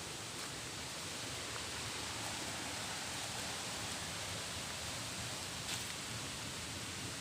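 Steady rushing hiss of a waterfall's falling water, even and unbroken, with one small click late on.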